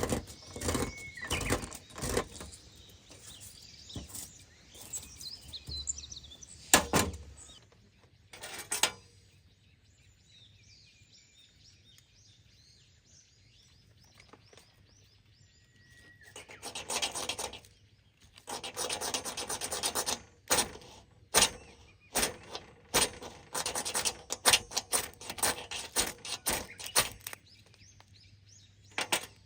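Hands working at camp gear: bursts of rubbing, rustling and sharp knocks, quiet for several seconds in the middle, where small birds chirp faintly.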